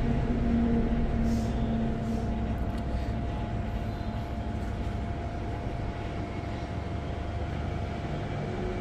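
Steady low background rumble, like engine or traffic noise, with a faint constant hum; a lower drone fades out a couple of seconds in.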